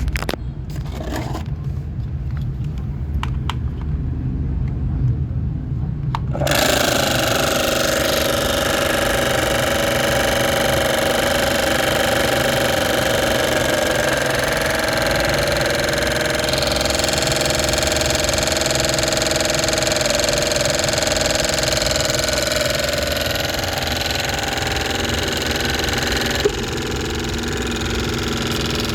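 Mini toy washing machine's small electric motor running: a low hum at first, then about six seconds in a much louder whirring with a steady whine starts and keeps going, dropping a little in the highs near the end.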